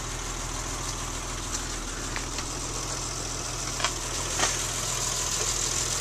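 BMW E30's swapped-in inline-six engine idling steadily, heard from inside the cabin, with a few light clicks about two and four seconds in.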